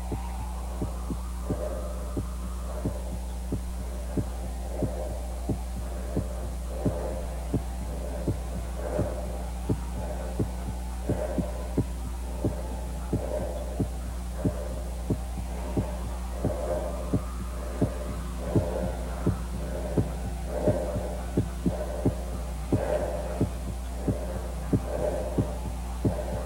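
Film soundtrack: a slow, regular thumping pulse like a heartbeat, repeating evenly over a steady low hum, with faint swelling tones between the beats.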